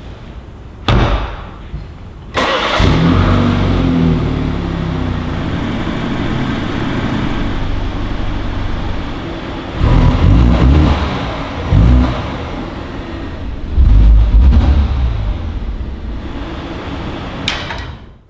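2021 BMW 430i's 2.0-litre turbocharged four-cylinder engine: a car door shuts about a second in, then the engine starts about two seconds in, flares and settles to a steady idle. From about ten seconds in it is revved in several short blips, the last and loudest around fourteen seconds, then drops back to idle.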